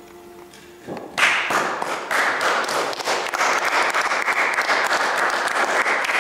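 A group of people applauding, breaking out suddenly about a second in and going on steadily; a little music sounds just before the clapping starts.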